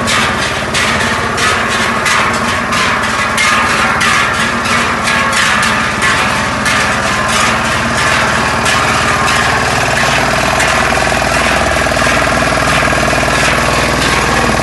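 Large Swiss Treichel cowbells swung in unison by a group, a rhythmic clanging about three strokes a second that dies away after about nine seconds. Under it a small utility transporter's engine runs steadily, plainer near the end.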